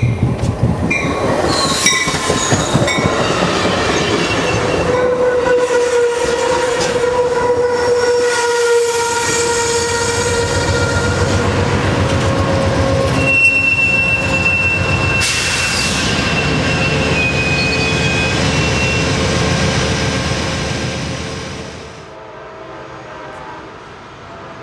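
Bilevel passenger train passing close on the near track, its running noise overlaid by long, steady, high-pitched wheel squeal. The sound drops away sharply about 21 seconds in as the last car clears.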